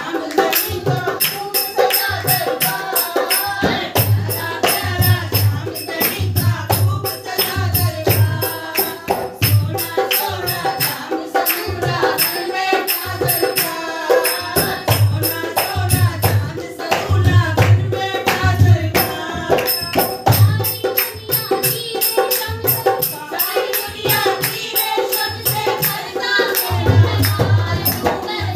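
Women singing a Hindi Ganesh bhajan to a dholak, the barrel-shaped two-headed hand drum, played in a steady rhythm of deep strokes, with a high jingling beat keeping time.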